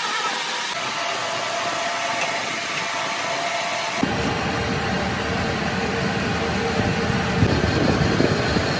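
Metal lathe running steadily, its large chuck spinning a camshaft. About four seconds in the sound turns heavier and rougher, with irregular knocks.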